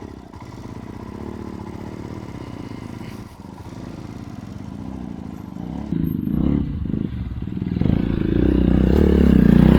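Motorcycle engine revving hard under load on a steep off-road climb, growing louder as the bike comes closer and loudest in the last couple of seconds.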